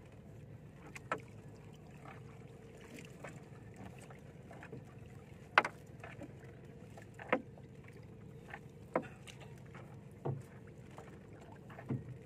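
Fishing net being hauled by hand into a small outrigger boat: sharp knocks every second or two as the net and its floats and sinkers hit the hull, the loudest about halfway through, over a steady low hum.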